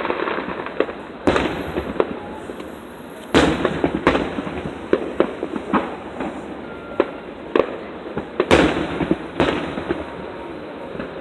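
Fireworks going off: several loud bangs, among them one sharp report about a second in and another past the middle, amid a run of smaller crackling pops and a steady background hiss.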